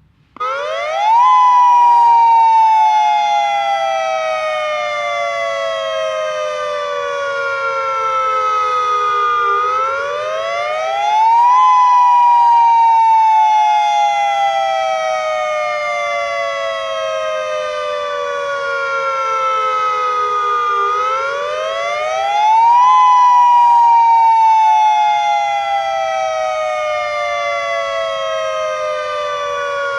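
Outdoor civil defense siren sounding Hawaii's wailing attack-warning (nuclear threat) signal during a test. It starts suddenly about half a second in, then climbs quickly in pitch and falls slowly over about nine seconds, in three cycles roughly eleven seconds apart.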